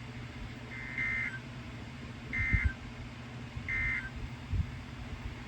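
Three short, identical bursts of Emergency Alert System SAME data tones, each a buzzy digital screech about a third of a second long, about 1.3 s apart: the end-of-message (NNNN) code that closes the warning. Two dull low thumps, the louder one about halfway through, and a steady low hum sit underneath.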